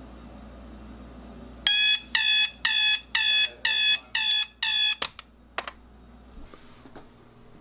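Sharp digital alarm clock going off: seven loud, evenly spaced electronic beeps, about two a second. They stop when the snooze bar is pressed, with a couple of clicks.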